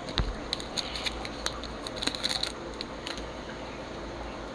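Baseball cards being handled: crisp clicks and short rustles of card stock sliding and flipping, busiest in the first two and a half seconds, with a low bump near the start.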